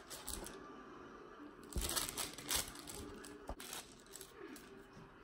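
Parchment paper rustling and a plastic dough scraper knocking on the worktop as soft dough is cut and handled, with a few sharp knocks around the middle.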